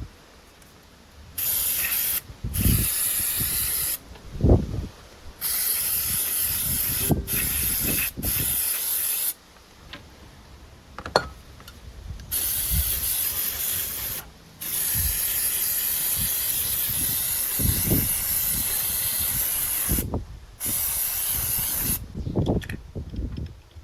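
Aerosol carburetor cleaner spraying in a series of hissing bursts, the longest about five seconds, into a small-engine carburetor being cleaned. Short knocks of handling fall between the bursts.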